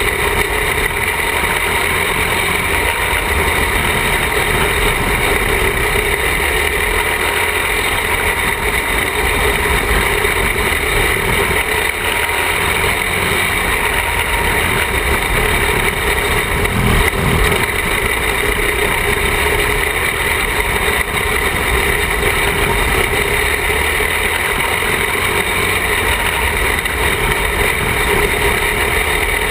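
Engine of a small open-wheel dirt-track racing car running steadily at speed while lapping, heard from on board. A noisy low rumble runs under the engine note.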